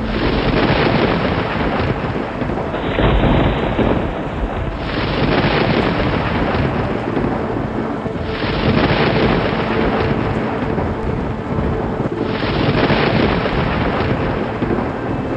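Thunderstorm: steady heavy rain with rolling thunder rumbles that swell and ease in waves every few seconds.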